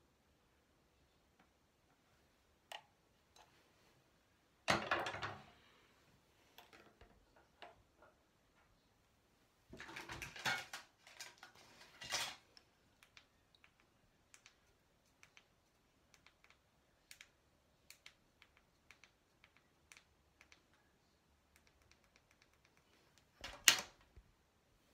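Faint scattered clicks and taps from handling makeup brushes and products. There are louder bursts of rustling handling noise about five seconds in, around ten to twelve seconds, and near the end, the last as a hand comes right up to the recording phone.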